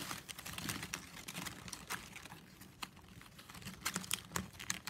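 Plastic strapping band clicking and rustling as strips are threaded and tucked through a woven piece by hand: scattered light ticks that thin out midway and pick up again near the end.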